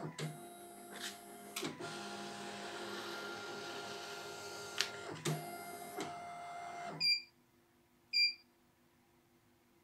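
CNY E900 computerized embroidery machine's embroidery unit driving the hoop carriage: a steady motor whir with a few clicks, which stops abruptly about seven seconds in. Then two short beeps from the machine's keypad as buttons are pressed.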